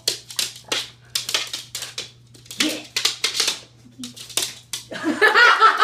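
A small dog scrabbling at and tugging a rug across a wooden floor: a rapid, irregular run of scratchy rasps from claws and fabric. A person starts laughing about five seconds in.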